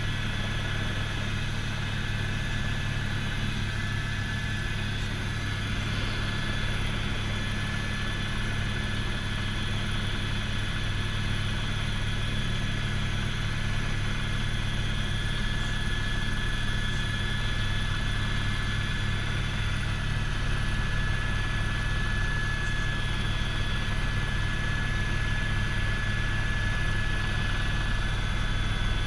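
Helicopter engine and rotor noise heard inside the cabin in flight: a steady low drone with a constant high whine over it.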